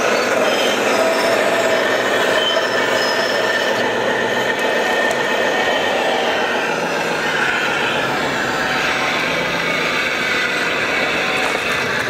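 Scale RC Liebherr 944 hydraulic excavator working, with a steady whine from its hydraulic pump and a dense rattle of dirt and stones as it digs and loads.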